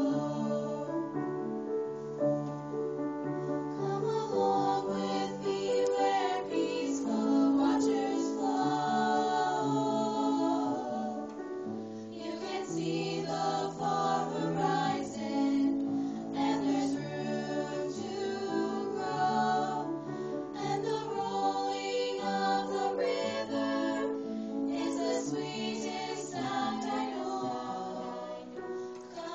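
Small ensemble of young voices singing a gentle choral piece in three-part harmony, with piano accompaniment.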